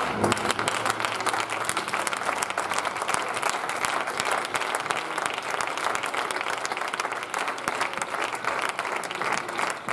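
Church congregation applauding, a dense steady clapping of many hands.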